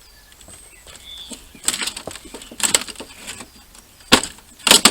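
Microwave oven door being worked and wrenched off its hinges: a run of rattles and clattering knocks, the sharpest about four seconds in and again near the end.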